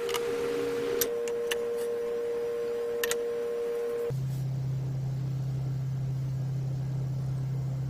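A steady pure tone, with a second slightly higher tone joining about a second in, switching to a single lower steady tone about four seconds in; a few light clicks sound in the first three seconds.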